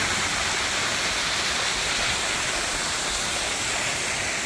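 Steady rushing splash of a waterfall pouring off a rock ledge, with water falling all along the rain-soaked overhang.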